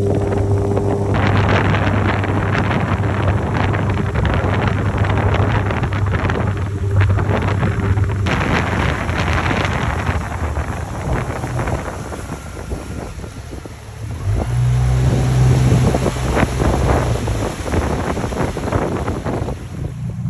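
Outboard motor of a RIB boat running under way, with wind buffeting the microphone over it. The motor's steady note drops into the wind noise about eight seconds in and comes back for a few seconds past the middle.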